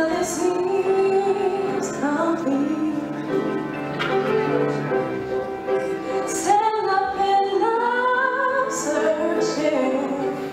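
A woman singing a slow, held melody into a microphone over sustained instrumental accompaniment.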